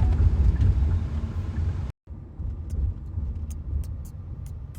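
Low rumble of a car in motion, heard from inside the cabin. It drops out abruptly about two seconds in and comes back quieter, with a few faint clicks.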